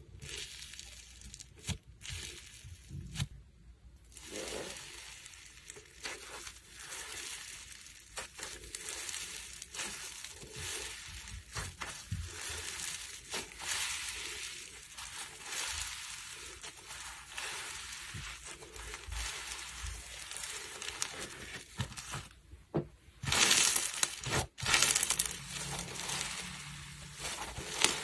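Slime being squished and worked by hand, giving dense fine crackling clicks and squelches, with a louder spell a little after three quarters of the way in.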